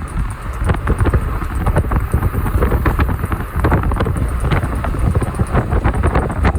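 A vehicle running, with a steady low rumble and frequent, irregular clicking and knocking throughout. This is the abnormal noise reported from the vehicle's left side.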